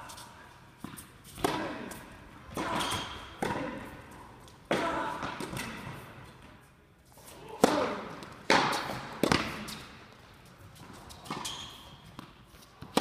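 Tennis rally in an indoor hall: rackets striking the ball and the ball bouncing on the court, each a sharp pop followed by a long echo off the hall. The hits come roughly once a second, with a short lull about halfway through.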